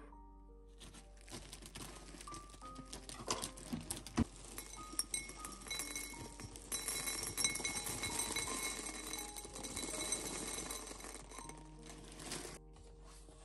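Chocolate cereal balls poured into a glass bowl, rattling and clinking against the glass: scattered pieces at first, then a denser steady stream that stops about a second before the end.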